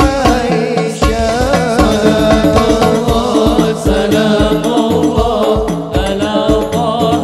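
Male voice chanting an Arabic sholawat melody with long, ornamented, gliding notes through a PA system, over a steady beat of deep hadroh hand-drum strikes.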